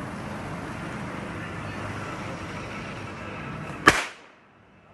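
Diwali firecracker: a steady hiss, then a single sharp, loud bang about four seconds in.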